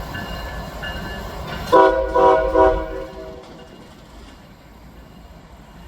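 Train horn sounding a chord in a few quick blasts about two seconds in, over the low rumble of a passing train that fades soon after.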